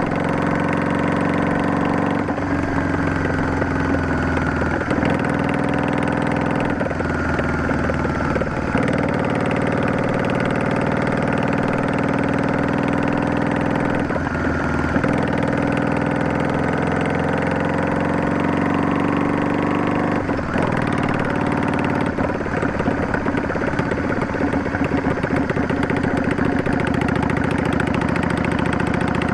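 Yamaha DragStar 400's air-cooled V-twin running through an aftermarket Garage T&F Vent Muffler with an inner silencer baffle, heard while riding. The exhaust note breaks off briefly and changes pitch several times as the rider shifts gears and works the throttle.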